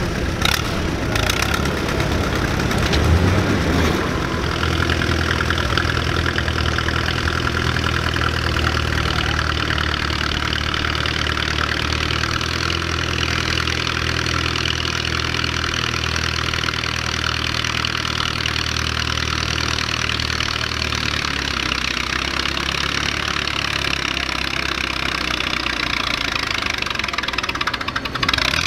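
Allis-Chalmers farm tractor engine idling steadily, a continuous low-pitched run, with a few sharp clicks in the first couple of seconds.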